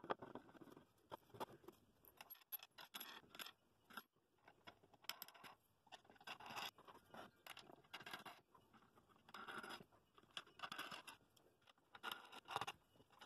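Faint, on-and-off scraping, rustling and small clicks of pine bowl rings being handled, slid and lined up against each other during glue-up.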